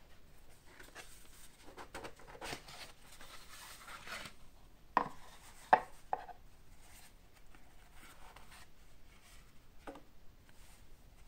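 Cardboard box lid being slid off with a dry scraping rustle, then three sharp knocks as the lid and box are set down on a wooden table top. Softer rustling and a light tap follow near the end.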